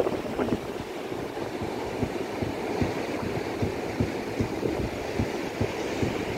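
Wind buffeting the microphone in irregular low thumps, a few a second, over the steady wash of surf breaking along the shore.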